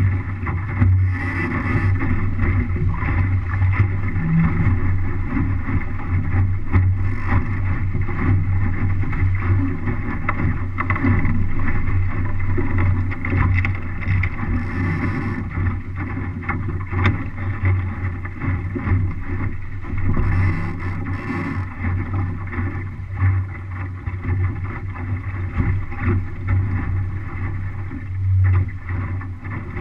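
MC-Scow sailboat under way: a steady rush of water along the hull mixed with wind buffeting the onboard camera, and a few short hisses of spray or flapping now and then.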